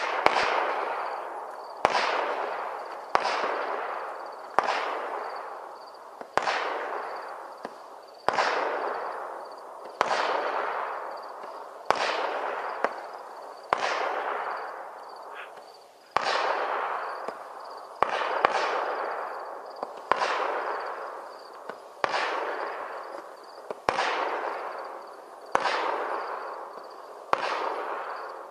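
BEM 'Go Fish' 25-shot fireworks cake firing one shot at a time, a sharp report roughly every one and a half to two seconds. Each shot is followed by a fading hiss as its comet bursts into a swarm of flying fish.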